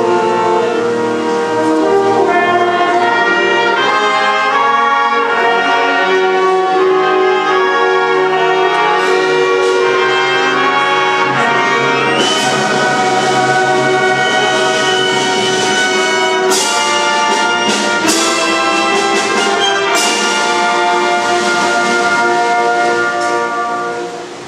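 Concert wind band playing, with brass and woodwinds holding full chords. From about halfway, sharp percussion strikes cut in over the chords. The music drops away just before the end.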